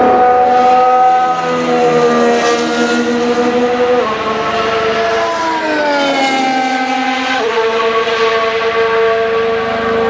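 Red Bull Formula One car engine running at high revs. Its pitch holds steady, drops suddenly about four seconds in and glides lower, then jumps back up a little after seven seconds and holds steady again.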